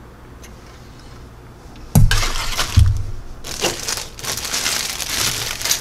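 Plastic model-kit sprues being handled: two knocks about two seconds in, then a few seconds of crackling, crinkling plastic.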